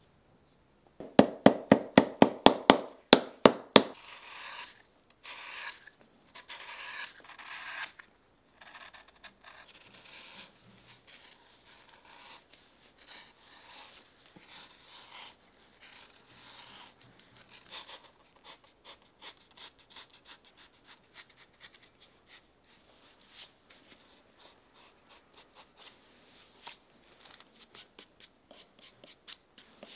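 Hand work on a stacked leather boot heel. About a second in comes a fast run of about a dozen loud, sharp strokes, roughly four a second. Several longer scraping strokes follow, then many quieter small cuts as a knife pares a leather heel lift, and light brushing near the end.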